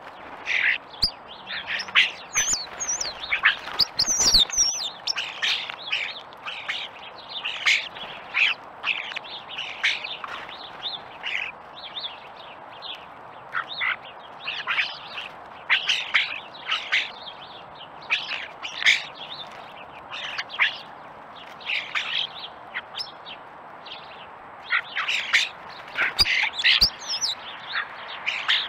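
A flock of European starlings calling: a continuous run of short, overlapping calls, with a few high whistled notes about two to four seconds in.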